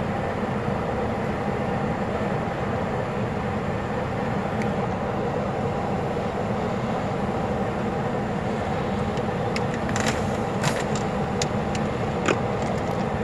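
Mi-8MT military helicopter's twin turboshaft engines and main rotor running steadily, heard as an even drone, with a few sharp clicks near the end.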